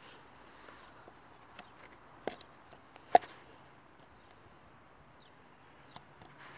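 A few short sharp clicks and taps from a hand handling a paper cup, the loudest just after three seconds in, over a low outdoor hiss.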